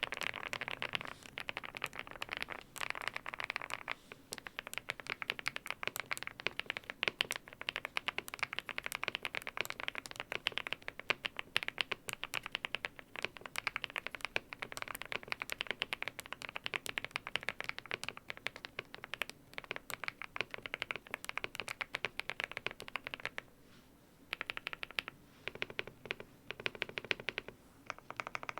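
Typing on an Aula F108 Pro full-size mechanical keyboard with lubed BSUN Hutt switches, a tape-modded and foam-filled case, and Sakura translucent keycaps: a dense, rapid run of keystroke clacks. Typing breaks off for about a second around 23 seconds in, then resumes as slower, spaced keypresses.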